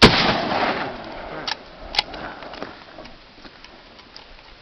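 A single gunshot that dies away over about a second and a half as its echo rolls off, followed by two sharp clicks, the louder one about two seconds in.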